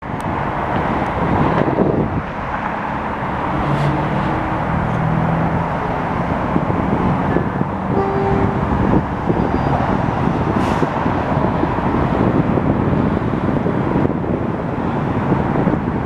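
Steady street traffic noise with wind buffeting the microphone, and a few faint short tones around the middle.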